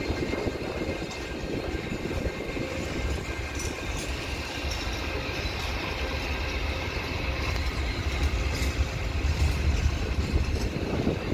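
Open freight wagons of a slow freight train rolling past, a steady rumble of wheels on rail with scattered clicks. The train is gathering speed after starting away from a signal.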